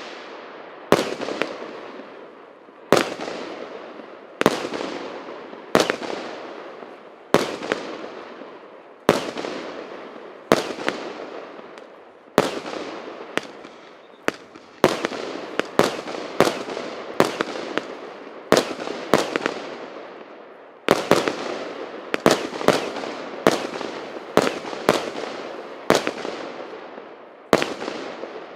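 A 136-shot consumer fireworks cake (Russkiy Feyerverk P8284) firing: a sharp report about every second or so, each followed by the fading crackle of the bursting shell. The shots come closer together after about twenty seconds.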